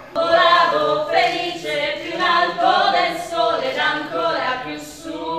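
A small group of men and women singing together without instruments.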